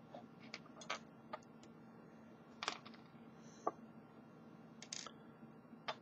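Small brass parts of a Brinks deadbolt lock cylinder clicking and clinking as they are handled and set down on a desk: about eight short, irregular clicks, over a faint steady hum.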